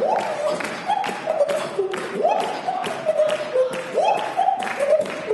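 Beatboxing: one performer's mouth percussion of kicks, snares and hi-hat clicks, with a melody line voiced over the beat that swoops up and steps down in a phrase repeating about every two seconds.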